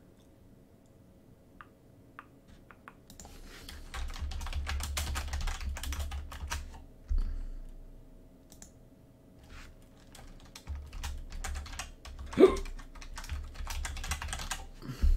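Typing on a computer keyboard in two bursts of rapid keystrokes with a lull between them. A brief voice-like sound cuts in near the end.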